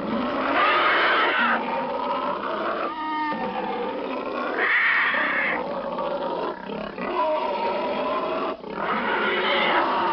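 Monster growl sound effect: a continuous, layered snarling growl that swells louder three times, about a second in, around five seconds in and near the end.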